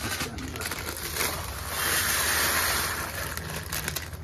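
Aquarium gravel poured from a plastic bag into a bucket of water for washing. The bag crinkles and clicks, and from about halfway in a rush of pouring and splashing lasts about a second and a half.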